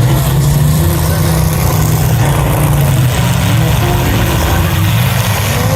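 Engines of several demolition derby cars running together, a dense steady low rumble.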